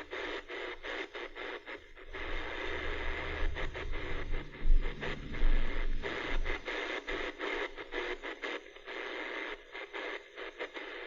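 Kaito KA550 portable radio's speaker hissing with shortwave static while the band is scanned quickly, the noise cutting out briefly over and over. A low rumble runs underneath from about two to seven seconds in.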